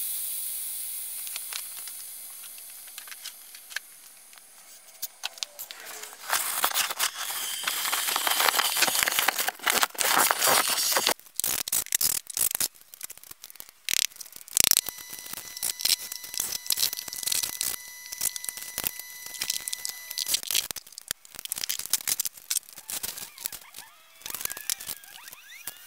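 Air hissing out of a deflating exercise ball, fading away over the first few seconds. Then several seconds of loud rustling, scraping noise, and later a cordless drill whirring steadily for about five seconds, followed by scattered rattles, clicks and crinkles.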